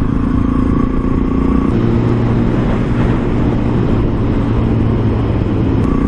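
Suzuki DR650SE's single-cylinder engine running under way at cruising speed, with wind noise over the helmet microphone. The engine note drops a little about two seconds in.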